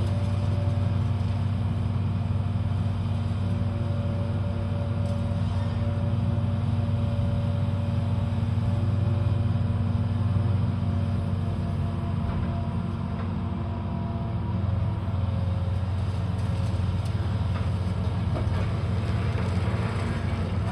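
Heavy demolition machinery's engine running steadily, a constant low hum with a few steady higher tones above it.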